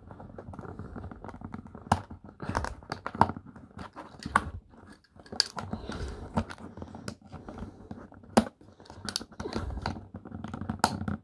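Plastic toy packaging being worked at by hand to free a small accessory: irregular crinkling and crunching of the plastic, with many sharp clicks.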